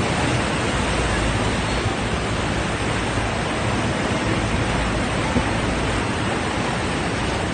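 Steady roar of rushing water from the waterfall and the boat's churning wake, with a deep rumble underneath.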